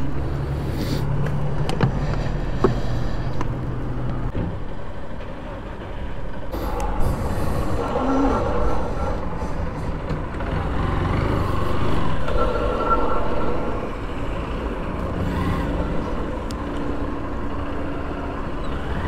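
Motorcycle engine running amid street traffic. A steady low hum at first gives way to busier traffic noise from about six seconds in.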